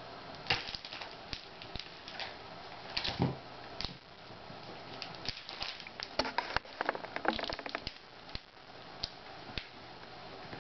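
Computer keyboard keys pressed and tapped by a toddler's hand, making irregular clicks and small clusters of taps, busiest in the second half.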